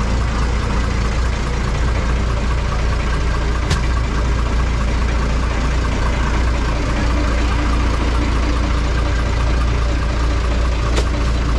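A fishing boat's engine running steadily, with a constant low drone. Two short sharp clicks are heard, one about a third of the way in and one near the end.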